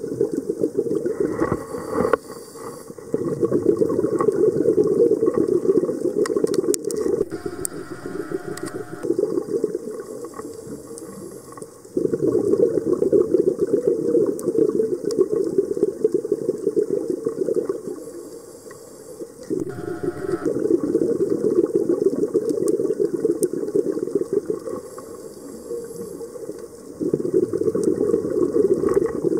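Scuba diver breathing through a regulator underwater: long rushes of exhaled bubbles, broken twice by a short hissing inhalation through the demand valve.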